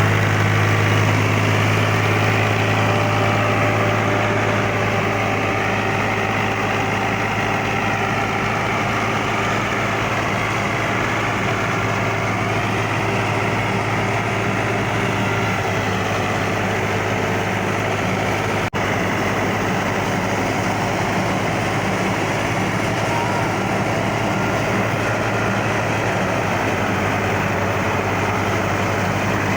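Tractor engine running steadily while driving a wheat thresher: the engine's low, even hum under the thresher's dense mechanical noise. There is a momentary break a little past halfway.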